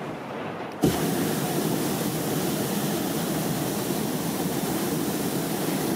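Hot-air balloon's propane burner firing overhead: a loud, steady roar that starts abruptly about a second in.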